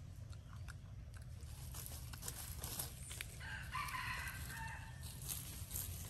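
A rooster crows once, a call of about a second and a half starting a little past three seconds in. Scattered crackles of dry leaves underfoot run around it.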